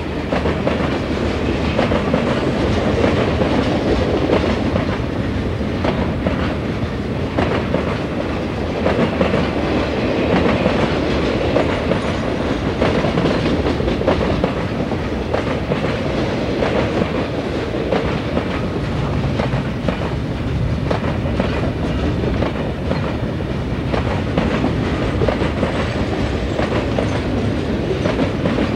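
Freight train of boxcars and lumber-loaded flatcars rolling past: a steady noise of steel wheels on rail with constant clicking over the rail joints.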